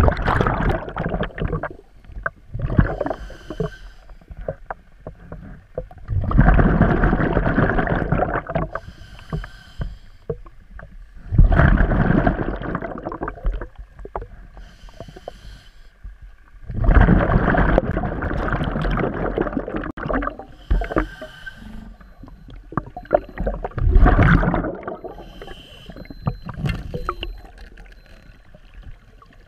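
Scuba regulator breathing heard underwater: a hiss on each inhale, then a loud rush of exhaled bubbles lasting two to three seconds, repeating about every five to six seconds.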